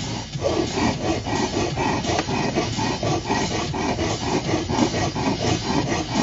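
Hand file stroking back and forth over a metal part in quick, regular strokes, about three a second.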